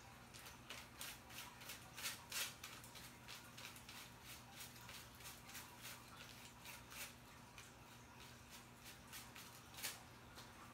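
Faint, irregular crinkles and taps of hair foil and a tint brush as lightener is worked into a back-combed section of hair, with two louder crinkles, one about two and a half seconds in and one near the end, over a steady low electrical hum.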